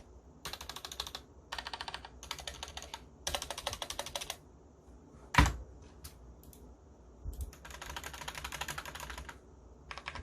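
Typing on a mechanical keyboard with Cherry MX Red linear switches: several quick runs of keystrokes, then one loud, deep single keystroke, such as a stabilized long key, about five and a half seconds in, then another run of typing.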